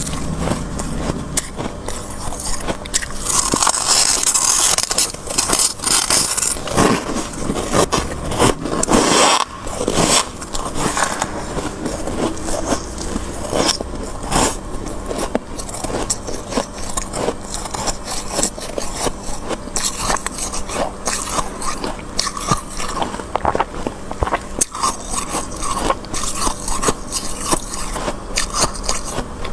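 Thick freezer frost being scraped up with a spoon and crunched in the mouth: a dense run of crisp crunches and scrapes with no pauses.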